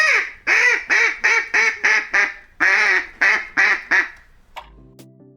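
Duck quacking: a quick run of about a dozen loud, raspy quacks that stops about four seconds in.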